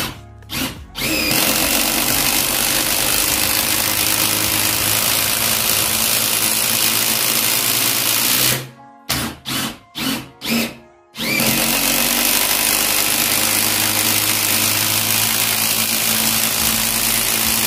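Bosch GDR 18V-200 C cordless impact driver driving a 180 mm screw into stacked lumber, its hammering impacts running continuously. It starts with a few short trigger pulses, stops and restarts with several short bursts around the middle, then runs long again to the end.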